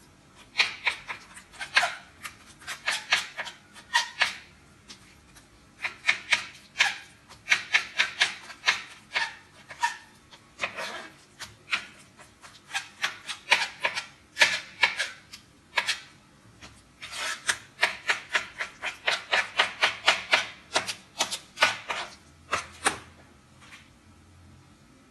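A kitchen utensil working food in rapid runs of short scraping strokes, several a second, coming in bursts of a few seconds with brief pauses.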